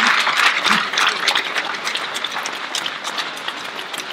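Crowd applauding, a dense patter of many hands clapping that is loudest at first and gradually dies down.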